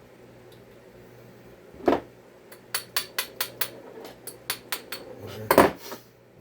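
Small metal parts and hand tools being handled on a workbench: a knock, then a quick run of sharp metallic clicks and clinks, and a heavier knock near the end.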